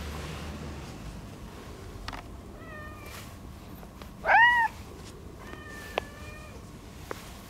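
Orange tabby cat meowing three times: two faint calls around one loud, short meow about four seconds in that rises and then falls in pitch.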